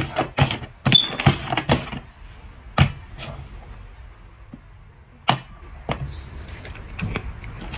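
Cups being set down and slid about on a tabletop board: a string of short knocks, quick and close together for about the first two seconds, then a few single knocks spaced out.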